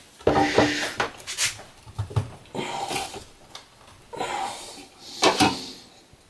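Workshop handling sounds: a series of knocks, scrapes and clanks as pieces of sheet aluminum and scrap metal are moved and set up for a bend, with two sharper hits.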